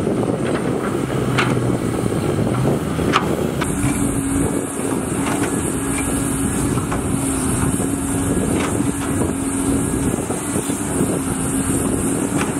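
Heavy diesel machinery running: a Cat 320D excavator working, with two sharp metal clanks in the first few seconds. About four seconds in, the sound changes abruptly to a dump truck's diesel engine with a steady drone as it drives.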